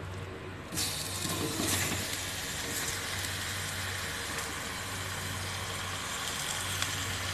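Wet raw prawns dropped into a hot earthenware cooking pot, setting off a steady sizzling hiss about a second in, with a few light clicks of prawns and plate against the pot over a constant low hum.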